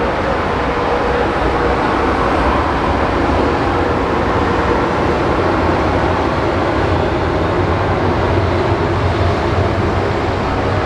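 Jet airliner engines running under power: a steady, loud rumble with a few faint steady tones over it.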